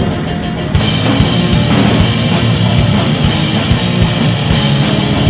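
Rock music with a driving drum beat and guitar. It thins out for the first second, then the full band comes back in.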